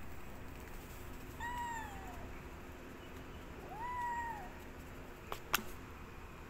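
Young dilute tortoiseshell kitten meowing twice, two high mews a couple of seconds apart, the first falling away at its end, the second rising and then falling. Two sharp clicks follow near the end.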